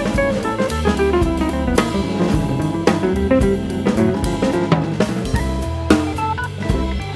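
Instrumental background music with a drum kit keeping a steady beat under a bass line and melodic notes.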